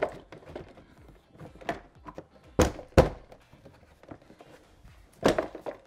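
Plastic interior trim panel of a 2019 Toyota Tacoma's rear door being pressed and knocked into place against the door: light handling rustle, then two sharp thunks less than half a second apart about two and a half seconds in, and another thunk near the end.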